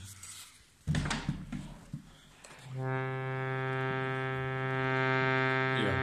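Harmonium reed sounding a low C, held steadily from about halfway in, after a knock and some handling noise. The reed's tongue is set too far from its frame, so the note is slow to speak and sounds improper.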